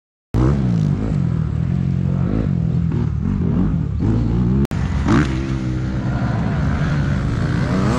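Kawasaki KLX110RL pit bike's small single-cylinder four-stroke engine, revving up and down again and again. The sound drops out for an instant just under five seconds in.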